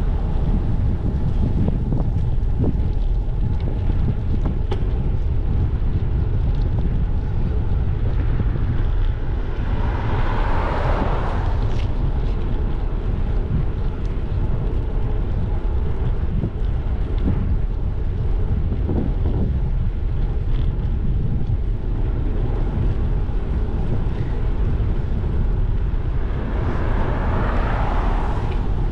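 Wind buffeting the microphone of a bicycle-mounted GoPro Hero 12 while riding, a steady low rumbling hiss. Two louder rushing swells rise and fade, one about ten seconds in and one near the end.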